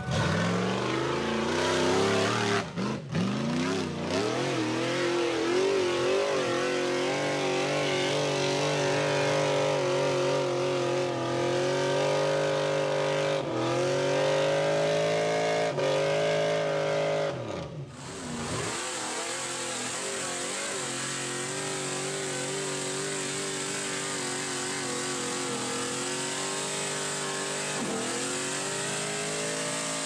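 Tube-chassis off-road buggy's engine revving hard under load as it spins its tyres up a steep dirt hill, the pitch swinging up and down with the throttle. About 18 seconds in it drops off briefly, then runs on quieter and steadier.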